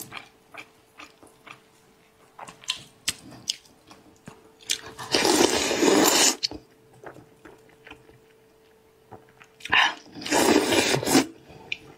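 Close-miked eating of spiced sheep's-head meat: small wet chewing and mouth clicks throughout, with two long, loud sucking slurps, one about five seconds in and one about ten seconds in, as meat is sucked off the fingers and bone.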